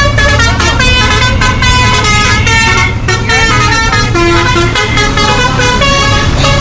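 A bus's musical horn plays a rapid tune of stepped electronic notes, a new note every fraction of a second, over the steady low drone of the moving bus.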